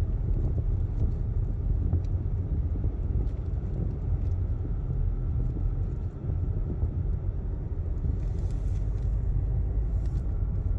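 Low, steady rumble of a car driving, heard from inside, with a short lull about six seconds in.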